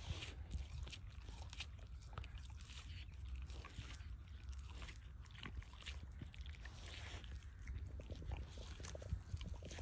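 A dog chewing turkey, with irregular crunches and clicks from the teeth working the meat and bone, over a low steady rumble.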